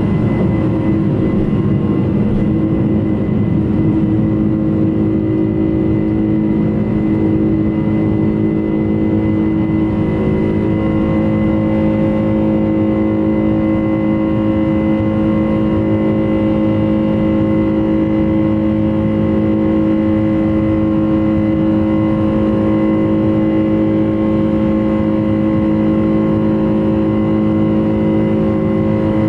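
Boeing 747-400 engines at take-off thrust, heard from inside the cabin: a loud, steady jet whine with several held tones over a broad rush. Runway rumble from the wheels fills the first several seconds, then the sound smooths out as the airliner lifts off and climbs.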